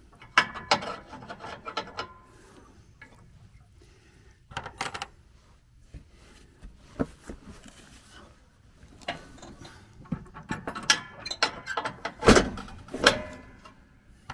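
Hand work on a riding mower's deck and linkage: irregular clicks, clanks and scraping of metal parts and tools being handled. There is a cluster at the start, a few single knocks in the middle, and a busier run of knocks and scrapes near the end.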